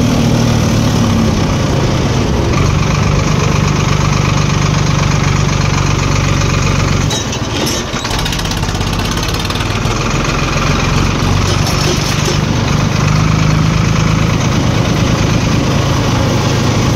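Tractor diesel engine running steadily while driving, heard through a modified exhaust silencer. Its note drops and the sound dips briefly about seven seconds in, then picks up again.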